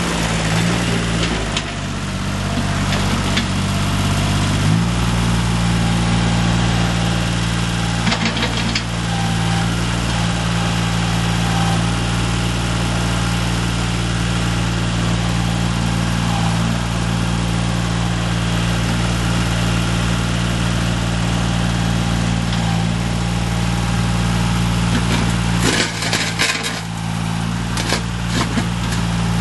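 Kumiai MT1601 compact farm tractor's diesel engine running steadily, its note changing twice in the first five seconds. A few brief clatters are heard about eight seconds in and near the end.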